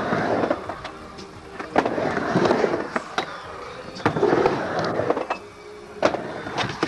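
Skateboard wheels rolling across a wooden halfpipe ramp, the rumble swelling and fading with each pass. A few sharp clacks come as the board strikes the coping at the top of the ramp.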